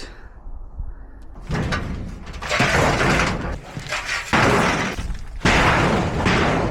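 Sheet-metal panels of a metal shed banging and rattling in a run of loud crashes, about one a second, starting a second and a half in, as the shed is knocked apart.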